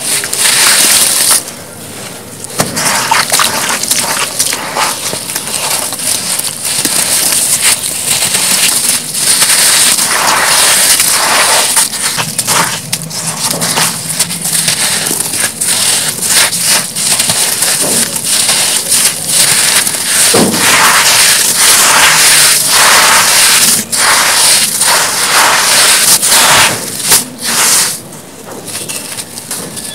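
Hands crushing and raking soft black sandy blocks into loose grit: close, continuous crunching and gritty scraping with dense crackling of the grains, easing briefly near the end.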